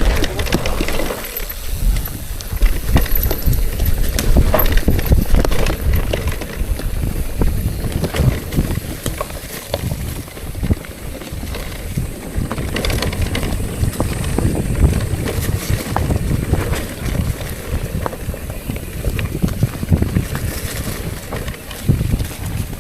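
Bicycle rattling and clicking over a rough gravel forest road, with wind rumbling on the microphone throughout.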